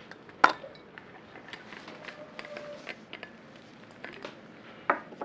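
Light clicks and knocks from a bottle of hydrogen peroxide and lab glassware being handled while it is poured through a funnel into a measuring cylinder, with two sharper knocks, one about half a second in and one near the end.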